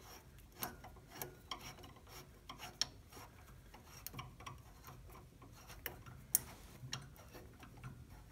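Heli-Coil thread insert being wound by hand into a tapped hole in a car's front hub with its crank insertion tool: faint, irregular metallic clicks, about two a second, over a light scraping of metal on metal, with one sharper click about six seconds in.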